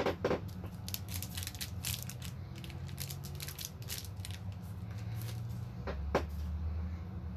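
Trading card packs being opened and handled: a flurry of crinkly wrapper crackles and small clicks over the first few seconds, then a single sharp click about six seconds in, over a steady low hum.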